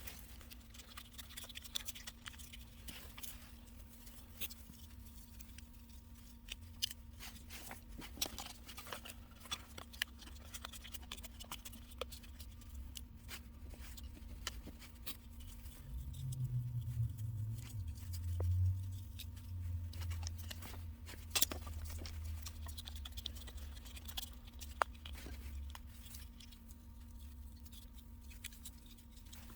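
Small fire crackling, with irregular sharp pops and clicks. A low hum comes in about 16 seconds in and fades about ten seconds later.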